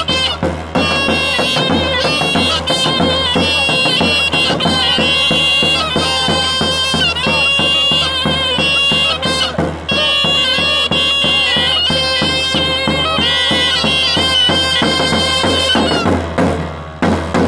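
Two reedy folk wind pipes play a loud, ornamented traditional melody over steady strokes of a large double-headed drum (tapan) beaten with a stick. Near the end the pipes stop and the drum goes on alone.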